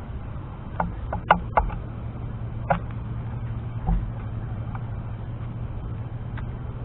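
A scooter ride: a steady low hum with wind and road rumble. A few sharp clicks and knocks come about a second in, near three seconds and again near four seconds.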